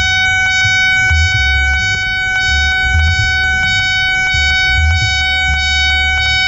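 Level-crossing warning alarm of the Nippon Signal (Japanese) type, sounding loud and continuously: a steady ringing tone struck rapidly, several times a second, with a low rumble underneath.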